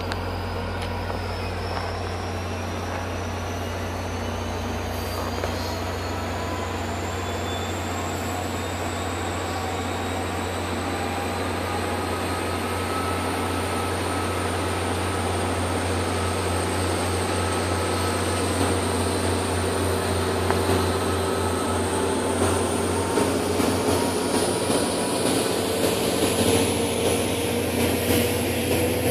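Passenger train passing: the diesel locomotive gives a steady low hum under thin whines that slowly rise in pitch. The sound grows gradually louder, and uneven wheel clatter from the cars comes in over the last several seconds.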